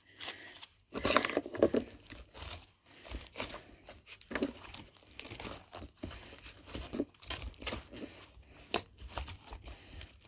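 Butter slime (glue slime mixed with soft clay) being squeezed, stretched and pulled apart in the hands, making an irregular run of short sticky clicks and pops.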